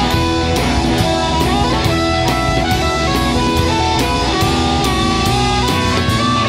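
Electric blues band playing an instrumental passage: electric guitar with bending lead notes over bass and a drum kit keeping a steady beat.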